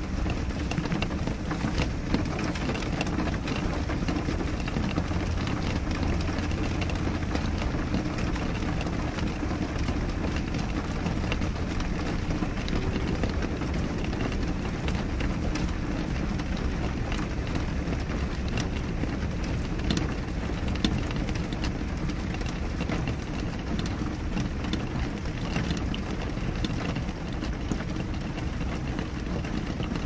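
Steady rain on a window pane: a low, even rush with many separate drops ticking sharply on the glass.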